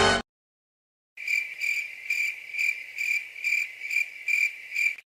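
Cricket chirping sound effect: a steady run of about nine chirps, roughly two a second, the stock crickets gag for an awkward silence.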